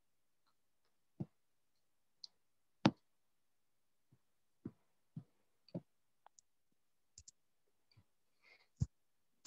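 Scattered short clicks and knocks through open microphones on a video call, about a dozen, with dead silence between them. The loudest come near 3 seconds and just before the end.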